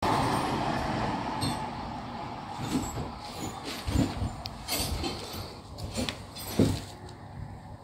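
Handling noise from a handheld camera: irregular low thumps and short clicks over a hiss that fades over the first couple of seconds.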